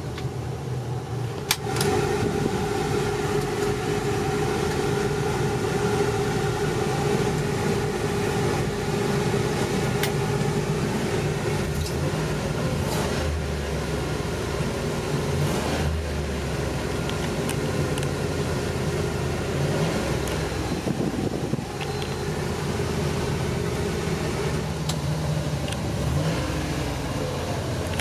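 Ford E-150 van's engine idling, heard from inside the cab. A steady hum joins it about two seconds in and stops a few seconds before the end, with a few sharp clicks along the way.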